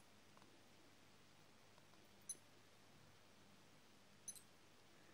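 Two short, high-pitched ticks from a Casio Pro Trek PRG-270 watch as its side buttons are pressed, about two seconds in and again about four seconds in, against near silence.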